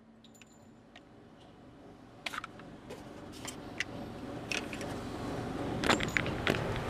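Handling noise: scattered small clicks and clacks over rustling that builds steadily louder from about two seconds in.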